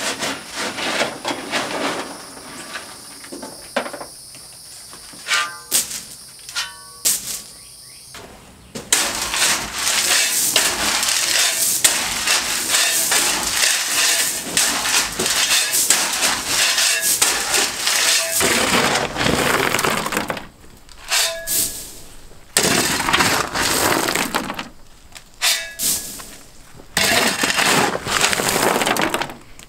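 Crushed gravel being shoveled: a steel shovel scraping into the stone and loads pouring and sliding off, first as separate strokes with a few short ringing knocks, then a long, nearly continuous pour through the middle, then more separate scoops.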